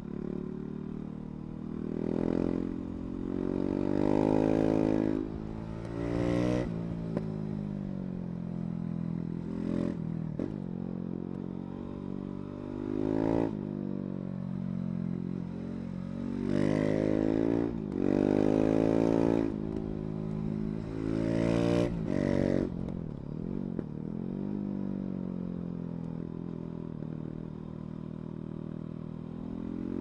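KTM 690 Duke's single-cylinder engine under way, its pitch climbing as it pulls hard out of bends several times and dropping back each time the throttle closes.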